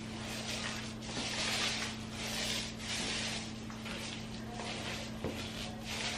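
Paint roller on an extension pole rolling wet floor paint over bare concrete in repeated back-and-forth strokes, a rubbing, swishing sound about once or twice a second. A steady low hum runs underneath.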